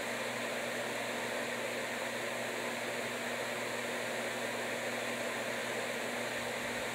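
Steady fan-like hiss with a faint low hum underneath, unchanging throughout.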